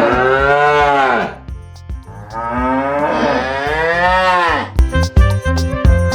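A cow mooing twice, each a long call that rises and falls in pitch; music with a steady beat starts near the end.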